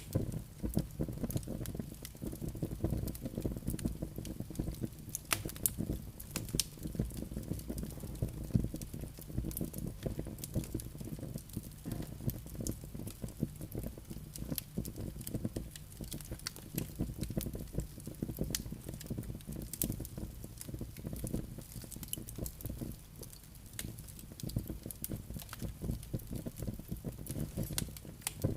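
Wood fire burning in a fireplace: a dense, irregular crackle of sharp snaps and pops from the logs over a steady low rumble of the flames.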